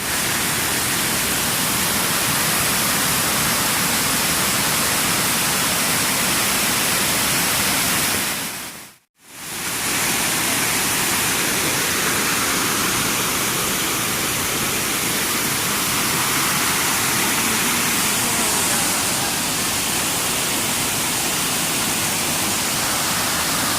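Falling water of a waterfall rushing steadily as a dense, even hiss, dropping out briefly about nine seconds in and fading straight back up.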